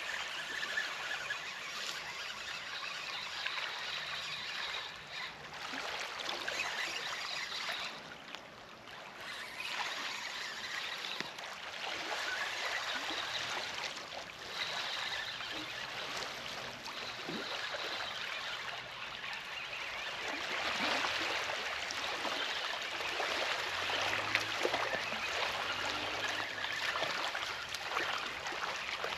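Small waves lapping and trickling among shoreline rocks, a continuous uneven wash of water.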